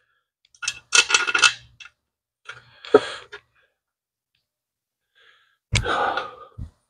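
Small metal parts, such as loose bolts, clinking and scraping in three short bursts during an engine teardown, with one sharp click about three seconds in.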